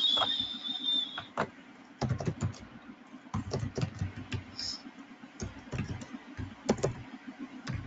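Computer keyboard typing: irregular clusters of keystrokes as a short line of text is typed. A brief high steady tone sounds in the first second, before the typing starts.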